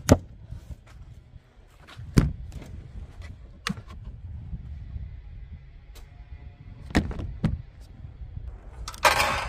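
Scattered sharp knocks and clunks of camping gear being handled: cans and food in a cooler, a plastic storage bin and a metal two-burner camp stove. A short, dense rustling hiss comes near the end.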